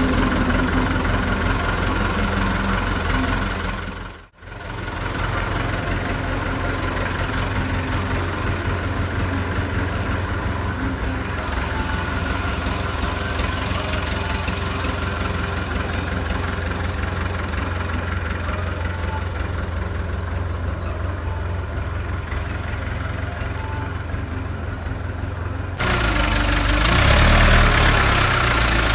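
JCB 3CX backhoe loader's diesel engine running steadily, breaking off briefly about four seconds in. Near the end the engine gets louder and its note wavers as the loader works with its front bucket raised.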